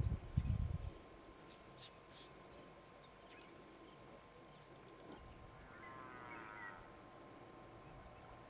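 Wild birds calling over a quiet riverside: many short, high, down-slurred chirps in the first half and a warbling call around six seconds in, over a faint steady insect buzz. A few low rumbling thuds in the first second are the loudest sound.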